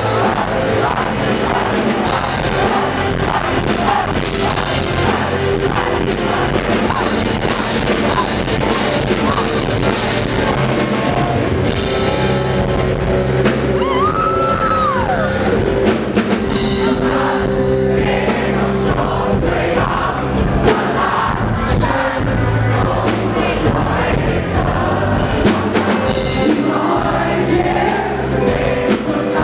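Live rock band playing loudly: electric guitars, bass and drums with a male lead singer, heard from among the audience.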